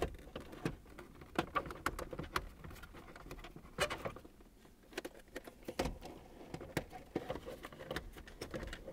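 Clear plastic instrument-cluster lens being handled and fitted against the cluster, making faint, irregular light clicks and taps of plastic on plastic.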